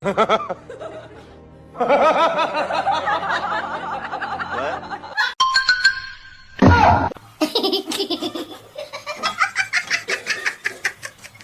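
People laughing over music, the sound changing abruptly several times, with a short loud low sound about seven seconds in.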